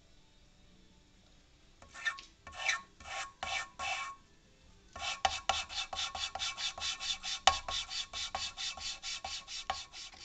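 Valve being hand-lapped into its seat on a Chevrolet Niva cylinder head: gritty metal-on-metal rasping with lapping paste, turned back and forth. A short run of about five strokes comes about two seconds in, then after a pause a steady, faster run of about four strokes a second.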